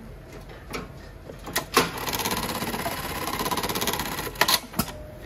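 JUKI LK-1910 computer-controlled industrial pattern sewer (electronic bar tacker) sewing a programmed circle stitch pattern. A few clicks come first, then about two seconds of rapid, even stitching, which ends in several sharp clacks.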